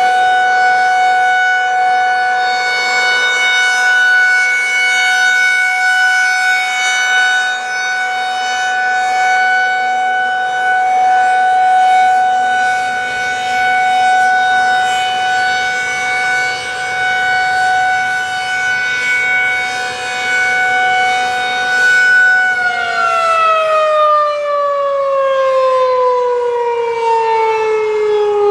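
Federal Signal 2001-SRN electromechanical outdoor warning siren sounding a steady alert tone at one held pitch, gently swelling and fading in loudness. About 22 seconds in, the signal ends and the tone glides steadily down as the siren winds down.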